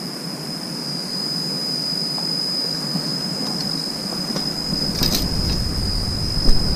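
Insects calling in one unbroken high-pitched tone, over rustling handling noise, with a sharp click about five seconds in.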